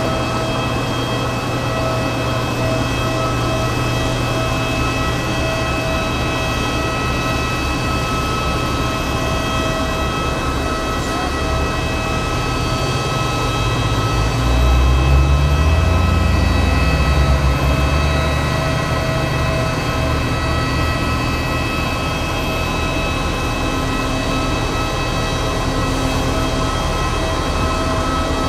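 Cabin noise inside an Airbus A320neo on the ground after landing: a steady engine and air-conditioning hum with several constant whining tones. About halfway through, a low rumble swells and rises in pitch for a few seconds, then falls back.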